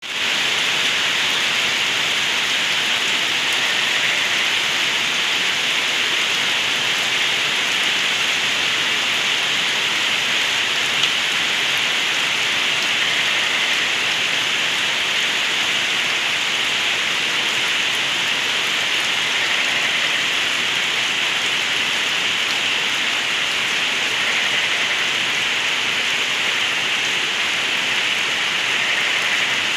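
Steady heavy rain with rainwater gurgling as it runs and drains, a dense even hiss without letup.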